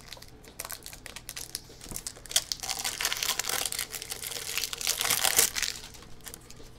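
Thin plastic packaging of a magnetic card holder crinkling as it is handled. The crackle is sparse at first, thickens from about two seconds in, is loudest a little after five seconds, then dies away.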